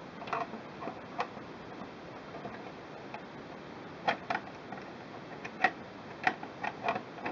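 Plastic side panel of a Singer Quantum Stylist 9960 sewing machine being worked back into place by hand: scattered sharp plastic clicks and taps as it meets the machine body, a pair about four seconds in and several more near the end.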